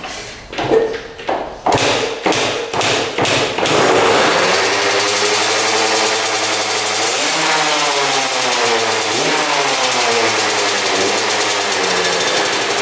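1996 Yamaha YZ125 two-stroke dirt bike engine being kicked over several times, then catching about four seconds in and running on its first start after sitting unused for years. It is revved up and back down once near the middle and then keeps running.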